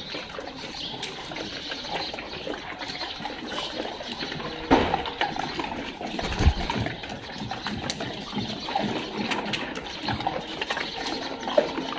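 A pack of dogs moving about on a tiled floor: claws clicking and shuffling steps, with sniffing and breathing. Two dull thumps come about five and six and a half seconds in.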